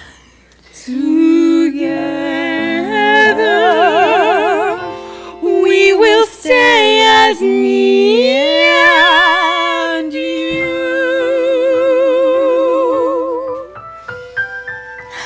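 Several stage singers hold the long closing notes of a show tune together, with strong vibrato, over musical accompaniment. Near the end the voices stop and a few short accompaniment notes remain.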